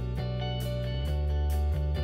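Background music with a plucked guitar over a steady bass and a regular beat.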